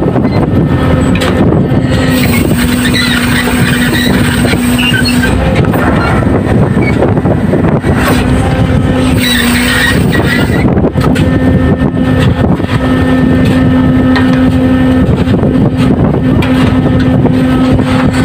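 Loud, steady machinery drone of fishing boats' engines and the deck winch hoisting a brail net of fish. A steady hum runs through it and breaks off briefly a few times.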